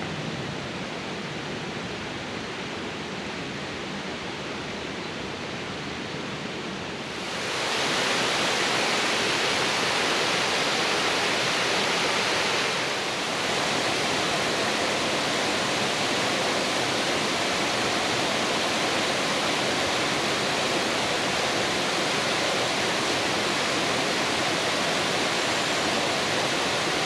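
Rushing water of a mountain waterfall and stream: a steady hiss of falling water that grows louder and brighter about seven seconds in.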